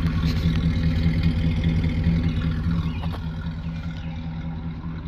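1964 Buick Special's V8 engine idling steadily through its stock exhaust, a low even rumble.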